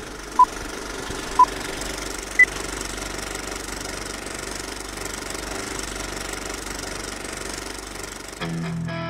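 Old film projector clattering steadily, with a countdown leader's short beeps a second apart: two beeps, then a higher-pitched final beep about two and a half seconds in. Near the end an electric guitar through an amplifier comes in, louder.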